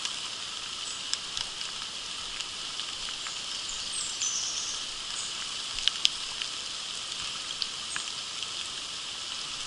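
Steady rain hiss mixed with a shallow stream running over stones, with a few sharp drop ticks scattered through it.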